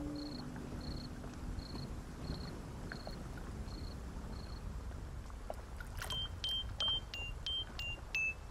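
Cricket chirping sound effect in short, evenly spaced pulses, about one and a half a second, over a low rumbling background; the chirping stops about four and a half seconds in. Around six seconds in, a run of short, high chiming notes at changing pitches begins.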